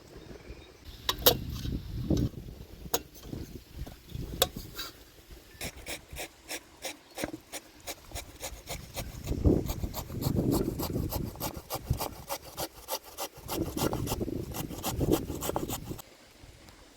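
Potatoes being grated by hand on a metal grater: repeated rasping strokes, each with a sharp click, settling into a quick steady rhythm of several strokes a second before stopping near the end.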